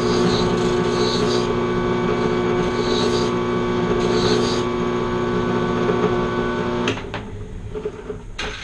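A machine's motor hums steadily, then cuts off suddenly about seven seconds in. Two short knocks follow.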